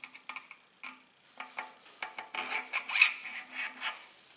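Bicycle quick-release skewer, a thin metal rod, being slid through the hollow axle of a rear wheel hub: metal scraping and a string of small clicks, loudest about three seconds in.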